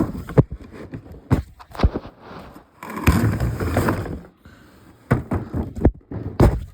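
Toy packaging being opened and handled: irregular knocks and clicks of the cardboard box, with a longer scraping, rustling stretch about three seconds in.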